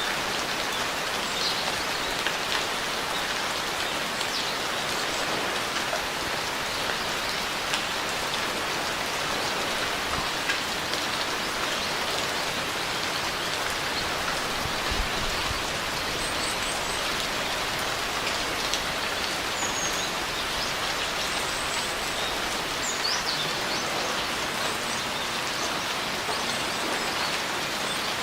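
Steady rain falling and pattering on surfaces, with scattered individual drop pops. A few faint, short, high chirps come through the rain in the second half.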